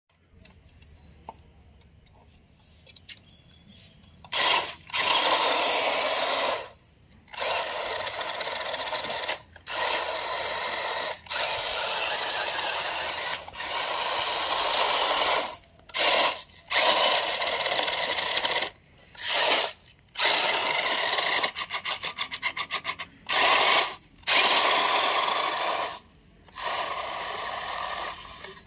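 Toy RC rock crawler driving across a deep bed of dried maize kernels: its electric motor and gearbox whirring while the tyres churn through the kernels. It starts about four seconds in and goes in bursts, stopping and starting every second or two.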